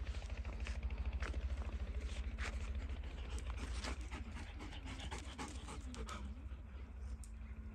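Long-coated German Shepherd puppy panting steadily, with a few short clicks in the middle.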